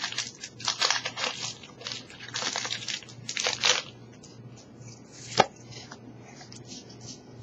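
Foil Pokémon booster pack wrapper crinkling as it is handled, in several short bursts, then a sharp click about five seconds in.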